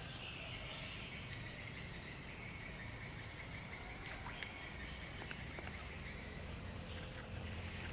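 Steady chorus of insects chirring in an even, high drone, over a low steady rumble, with a few faint clicks.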